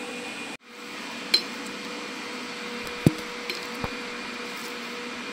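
A few light metallic clicks and clinks of a socket wrench working the bolts of the blanking plate over the AIS port on a Yamaha WR250X engine, the sharpest about three seconds in, over a steady faint hum.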